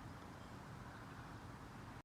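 Faint, steady background hiss with no distinct bird call.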